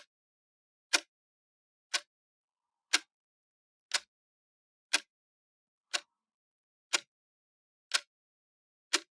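A clock ticking steadily, one sharp tick each second.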